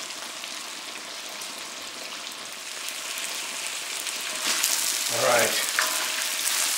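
Chicken thigh pieces sizzling as they fry in hot rendered chicken fat in a wok, a steady hiss that grows louder in the second half. A spatula stirs the chicken near the end.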